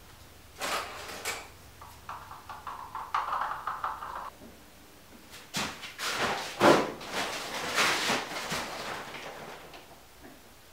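Handling noises while epoxy resin is mixed in a plastic cup: a scraping rasp for about two seconds, then a run of rustles and light knocks.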